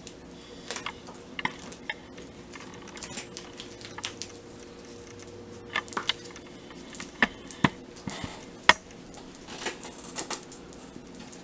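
Small toys and packaging handled on a tabletop: scattered clicks and taps with short bits of rustling, the sharpest click about nine seconds in.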